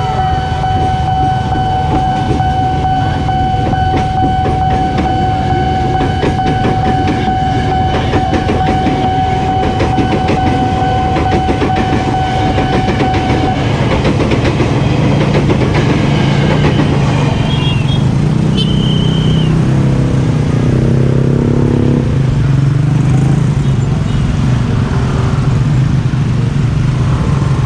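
Train passing over a level crossing, its wheels clacking over the rail joints, with a steady high tone sounding until about halfway through. Once the train has passed, a low rumble of waiting road traffic takes over, with a few short high beeps.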